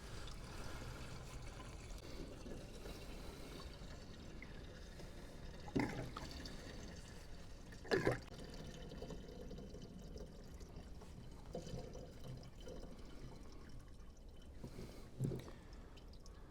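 Diesel fuel pouring faintly from a 5-gallon can into a machine's fuel tank, with a few knocks of the can about six, eight and fifteen seconds in.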